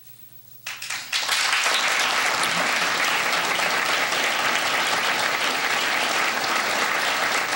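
Audience applauding in a room, starting about a second in after a brief hush and going on steadily.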